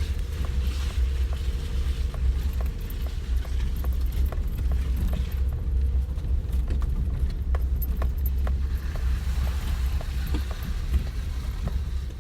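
Wood fire crackling, with many small sharp pops scattered irregularly over a steady low rumble.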